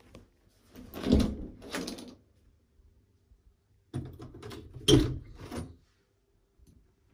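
Interior door being opened: latch and handle clicks with knocks and clatter of the door, in two bursts, one about a second in and a louder one around five seconds in.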